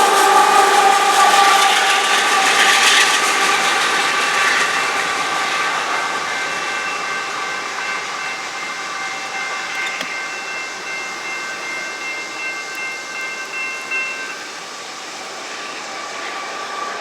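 Union Pacific coal train's cars rolling past, with a steady high ring of several tones over the rumble of the wheels. The sound fades gradually as the train draws away.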